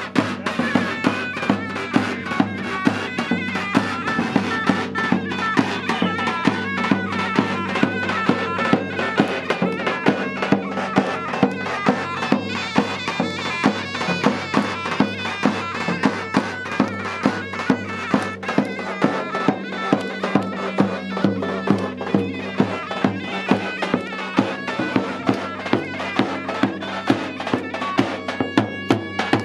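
Live folk dance music: a large double-headed drum beating a steady rhythm under a shrill reed wind instrument playing a wavering melody over a held drone.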